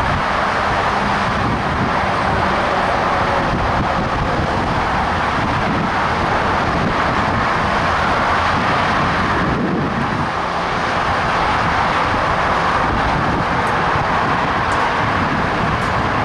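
Steady wind buffeting the microphone over a constant wash of freeway traffic.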